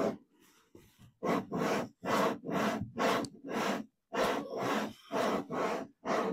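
Blakes seacock's tapered plug being twisted back and forth in its valve body with valve grinding paste, a gritty grinding rasp about twice a second, starting about a second in: the plug is being lapped into its seat to smooth out pitting.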